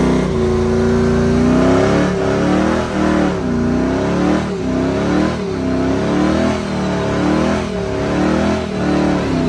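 Dodge Ram pickup's engine held at high revs in a burnout, the pitch rising and falling a little more than once a second while the rear tires spin and smoke.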